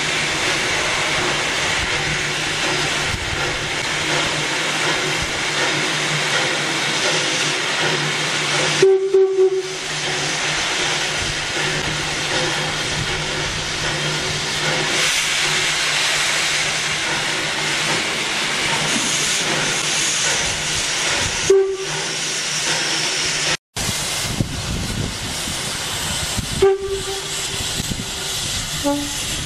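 Rio Grande Southern No. 20 steam locomotive hissing steadily as steam vents from its open cylinder cocks. Its whistle gives three short toots about nine seconds in, then two more single short toots later.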